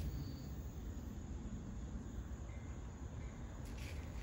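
Faint outdoor ambience: a steady low rumble with a few short, high chirps scattered through it.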